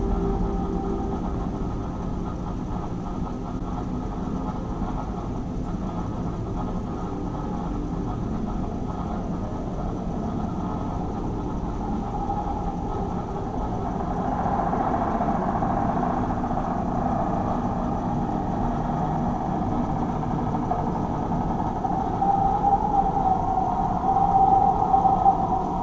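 Electronic soundscape: a dense, steady rumbling drone with a higher hum that swells about halfway through and again near the end, growing louder in the last few seconds.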